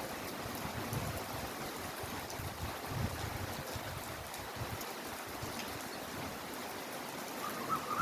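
Heavy, steady rainfall: an even hiss of rain with an uneven low rumble under it. Near the end a short, wavering high tone sounds faintly over the rain.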